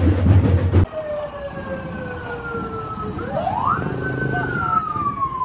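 Loud drumming that cuts off abruptly under a second in. Then a siren wails, its pitch falling slowly, jumping up sharply about three seconds in, holding briefly, then falling again.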